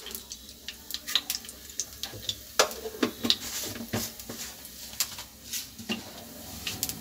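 Cumin seeds crackling and popping in hot ghee in a nonstick pan: irregular sharp pops over a faint sizzle as the seeds begin to fry.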